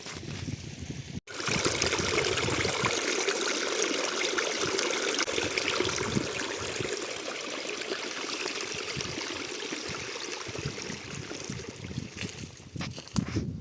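Running water of a stream, a steady rushing that starts abruptly about a second in.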